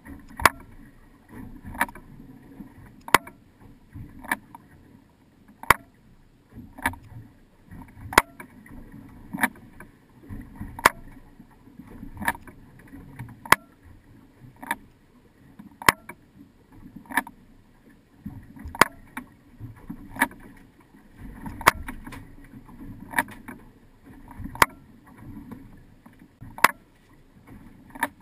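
Low steady rush of water and wind around a drifting fishing boat, under sharp clicks that repeat evenly, about one every second and a quarter.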